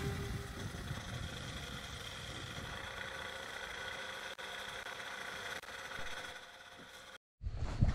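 Microlight trike engine idling faintly and steadily on the ground, with the tail of a guitar music track fading out at the very start. The engine sound sags near the end and then cuts off suddenly.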